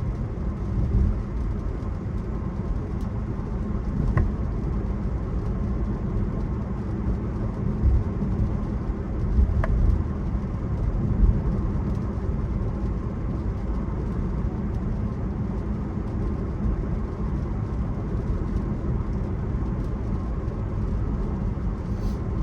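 Steady low road and tyre noise inside the cabin of an electric Tesla driving on a rain-wet road.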